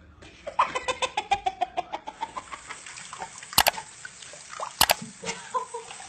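A cat sneezing twice, sharply, about a second apart. Before the sneezes there is a rapid run of short pulsed sounds falling in pitch.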